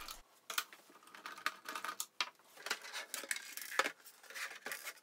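Scattered light clicks and taps of a screwdriver backing out the case screws of a Commodore PC-1. The plastic computer case is handled and turned over on a wooden desk.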